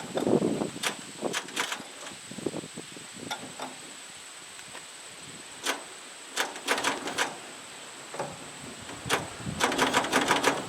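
Irregular knocks and clatters in three short bursts, from work on a 1952 Farmall Cub engine on an old baler that is not running; no engine sound is heard.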